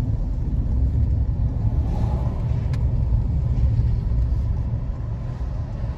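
Car being driven along a street, heard from inside: a steady low rumble of engine and road noise.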